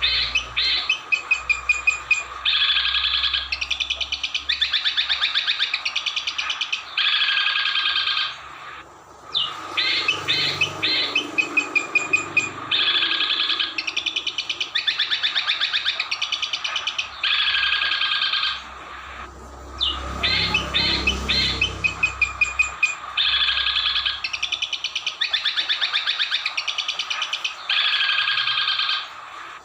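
Songbird song played as a looped training recording: fast trills and sharp chattering phrases, the same sequence repeating about every ten seconds with a short pause between repeats.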